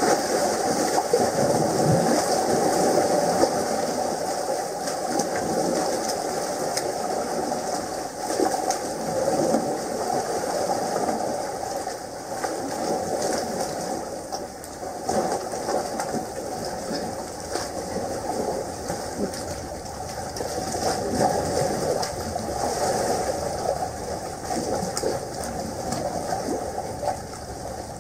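Water rushing and splashing through a narrow rock gully: a steady rush that swells and eases.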